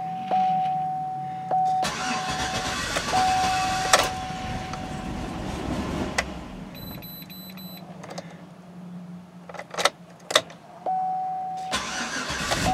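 Chevy Suburban V8 cold-started: a steady dashboard warning chime sounds as the key is turned, and the starter cranks the engine from about two seconds in. The engine fires and runs near the end.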